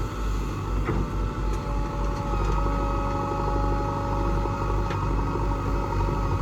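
Heavy diesel machinery engine running steadily, a low rumble with a steady whine over it and a few light knocks.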